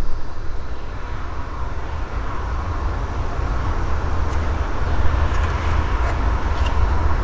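Steady low background rumble, with a few faint light clicks about halfway through and near the end as a metal CD changer mechanism is handled.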